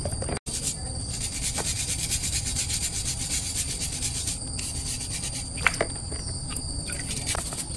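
Steel wire brush scrubbing a greasy metal motorbike part over a basin of water, a fast, scratchy rubbing with a few sharp clicks of metal, the loudest about two-thirds of the way in. A steady high insect drone runs underneath.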